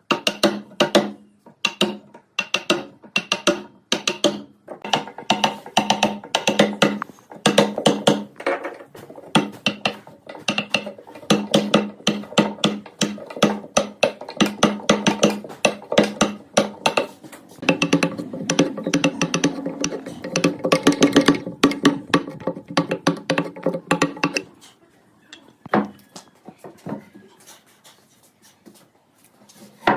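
Rapid wooden knocks, several a second, over a steady ringing tone. They thin out and grow quieter near the end.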